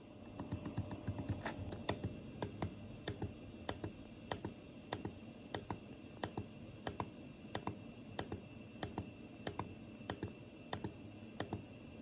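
Temperature button on a Daikin wired air-conditioner remote controller pressed over and over, a steady run of sharp clicks about one and a half presses a second, each press stepping the set temperature up a degree. There is a low handling rumble over the first couple of seconds.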